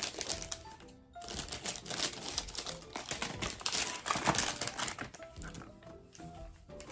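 Quick, irregular clicks and taps of small wrapped snacks being set into the compartments of a plastic tackle box, over faint background music.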